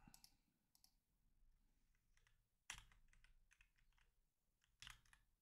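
Near silence with a few faint computer keyboard clicks, in a short cluster a little under three seconds in and another near the end.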